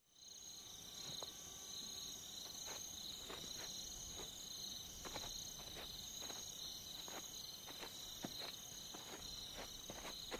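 Night insects, crickets among them, chirring steadily in high-pitched bands, with faint scattered ticks.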